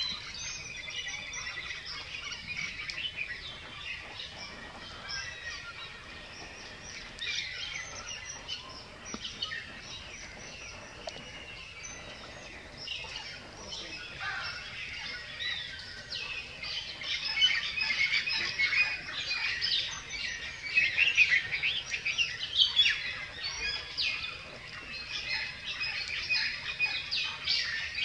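Birds chirping and twittering: many short, high calls overlapping, growing busier and louder about two thirds of the way through.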